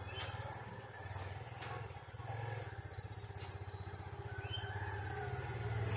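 A small engine running steadily, with a fast, even pulse. A couple of faint high chirps come about four and a half seconds in.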